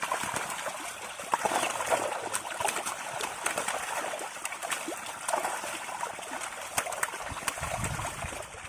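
Water splashing and trickling, with many small irregular splats and drips throughout.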